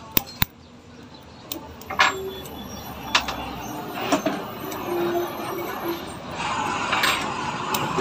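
Sharp metallic clicks and clinks from a motorcycle's front disc brake caliper and its pads and pin being handled, two quick ones just after the start and single ones every second or so after. A louder steady background rush builds in near the end.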